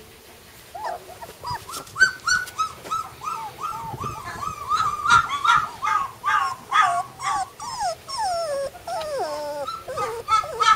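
Young flat-coated retriever puppy whimpering: a run of short high cries, two or three a second, turning in the second half into longer whines that fall in pitch.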